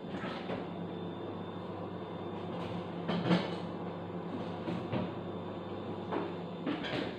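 Scattered knocks and clatter of kitchen things being handled, the loudest about three seconds in, over a steady low hum.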